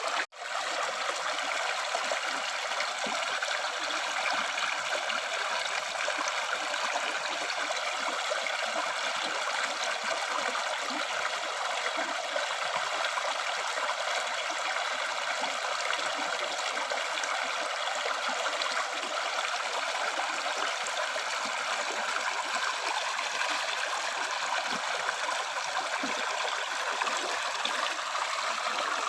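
River stream flowing: a steady rush and trickle of water, mostly high in pitch with little low rumble, that cuts out for a split second just after the start.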